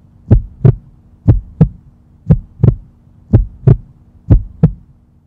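Heartbeat sound effect: double 'lub-dub' thumps about once a second, five beats in all, over a faint steady hum.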